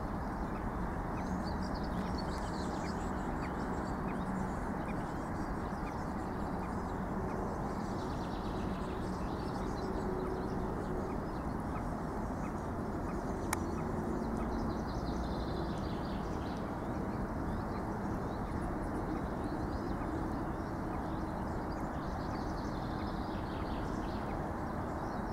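Outdoor ambience: a steady low rushing noise with faint birdsong warbling above it, and one small sharp click about halfway through.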